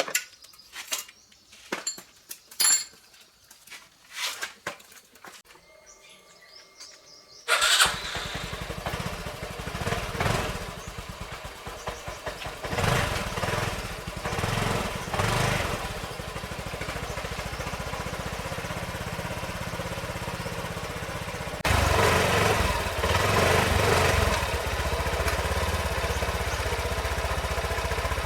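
A few light clicks and knocks, then about a third of the way in the Honda RSX 150's single-cylinder engine starts and runs, with a few throttle blips. Near three quarters through it steps up louder and holds there.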